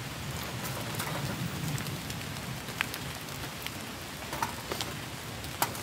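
Small wood fire burning in a compact box stove: a steady hiss with scattered sharp crackles and pops.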